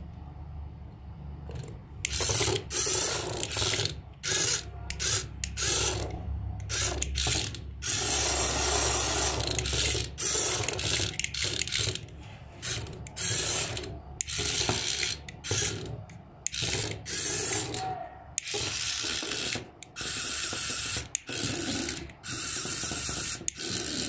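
Remote-control praying mantis toy's small electric motor and plastic gearbox driving its legs, running in short stop-start bursts as the remote button is pressed and released, starting about two seconds in, with a few longer runs.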